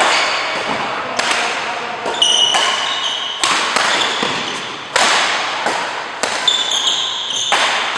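Badminton rackets striking a shuttlecock in a rally, about five sharp hits roughly every second and a half, each ringing out in a large echoing hall. Short high squeaks of court shoes on the mat come between some hits.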